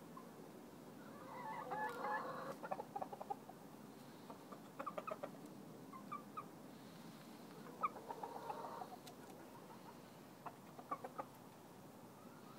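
Chickens clucking softly in several short runs of quick clucks, with two longer, louder calls about two and eight seconds in.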